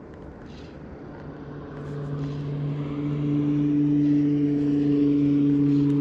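An engine's steady hum, growing louder over the first three seconds or so and then holding steady.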